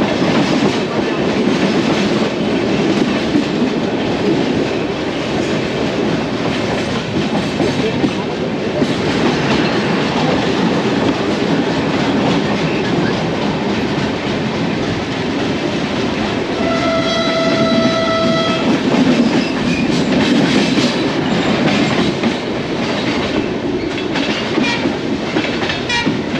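Indian Railways passenger train running, heard from inside a general coach: a steady rumble with clatter of wheels over rail joints. A train horn sounds once, for about two seconds, a little past the middle.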